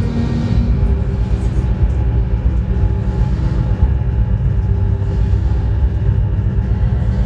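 Loud, steady low rumbling drone of experimental electronic music, with faint held tones above it.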